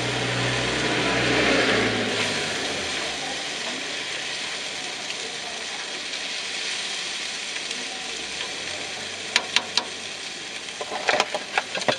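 A pan of potatoes, peas, bacon, egg and cheese sizzling with a steady hiss, with a few sharp clicks and knocks of a utensil against the pan near the end.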